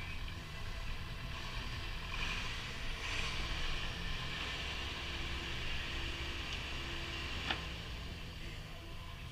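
Telehandler's diesel engine running steadily below, with a hiss of wind on the microphone and a single sharp click about three quarters of the way through.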